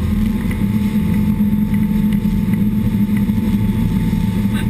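Pilot boat's engines running steadily at speed, heard from inside the wheelhouse: a loud, even low drone with a faint steady whine above it.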